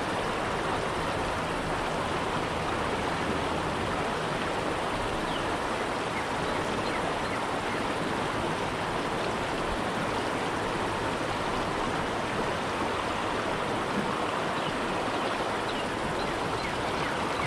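Shallow creek water rushing steadily over a rocky riffle.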